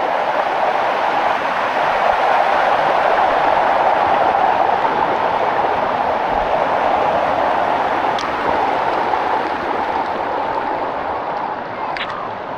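Water rushing steadily down the stones of a waterfall cascade, close by. It eases a little near the end, where a brief high squeak sounds.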